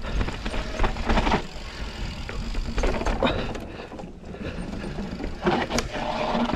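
Mountain bike descending a dirt trail: tyres rolling over the ground and the bike clattering over bumps, with scattered sharp knocks and a steady rumble of wind on the action camera's microphone.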